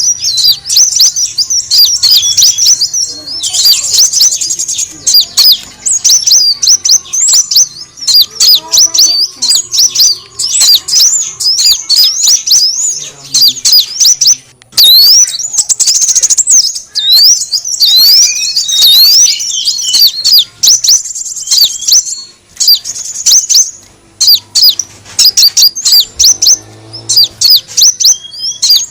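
Sunbird (kolibri wulung) lure call: a rapid, unbroken stream of high-pitched chirps and short sweeping twitters, pausing only briefly about halfway through and again near the end.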